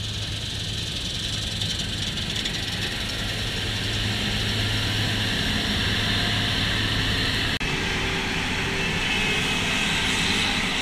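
New Holland CR9060 combine harvester running steadily while threshing wheat: a steady low engine drone under a high rushing noise. It breaks off for an instant about two thirds of the way through and fades out at the end.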